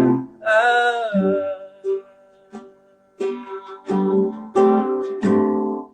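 Acoustic guitar playing the closing bars of a song: a run of strummed chords about every two-thirds of a second, each ringing and fading, ending on a final chord that dies away. A short sung or held note bends down in pitch near the start.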